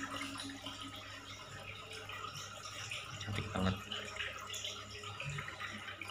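Water trickling and splashing at the surface of a goldfish aquarium where the fish are feeding, with small crackles over a steady low hum. One louder bump comes a little over halfway through.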